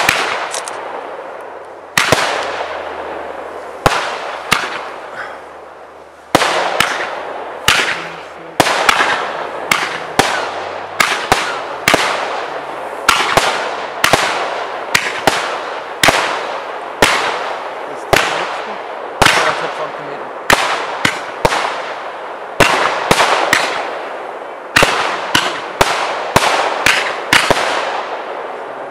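Category 4 display fireworks: aerial shells launching and bursting in a rapid series of sharp bangs, each trailing off in a long echo. A couple of seconds apart at first, then coming faster, about one to two a second.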